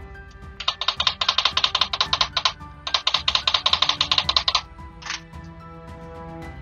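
Two runs of rapid light tapping, about ten taps a second, from a soft-tipped paintless-dent-repair knockdown tool worked against the car's body panel to knock down the raised crowns around the dent, then one short tap burst. Background music plays throughout.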